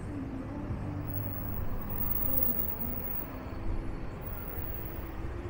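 Street ambience dominated by the low, steady rumble of passing motor traffic, with snatches of people's voices.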